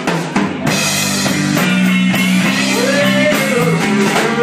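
Live band playing electric guitar over a drum kit, opening with a sharp drum hit.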